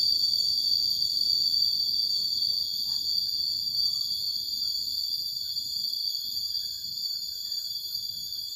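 Steady, high-pitched chorus of insects trilling in a tropical forest at dusk, slowly growing fainter.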